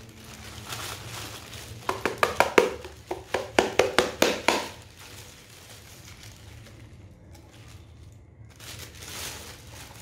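Thin plastic bag crinkling and rustling as it is worked around a vacuum cleaner's dust container. There is a run of sharp, loud crackles between about two and four and a half seconds in, then quieter rustling.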